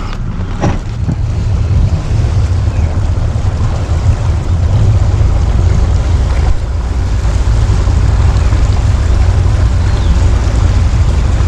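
Twin Yamaha two-stroke outboard motors running as the boat motors along, a steady low rumble that grows louder about four seconds in, with wind on the microphone.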